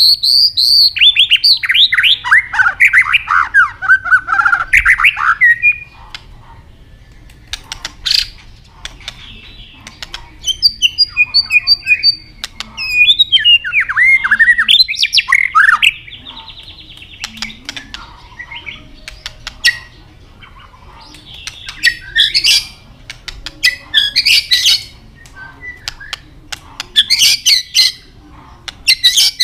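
White-rumped shama singing: a fast run of falling whistled notes at the start, then varied whistled phrases around the middle. Near the end come short bursts of sharp, harsh clicking calls.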